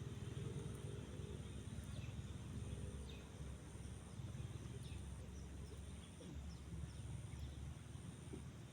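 Outdoor riverbank ambience: a steady high-pitched insect drone with brief gaps, a few short bird chirps, and a low rumble underneath.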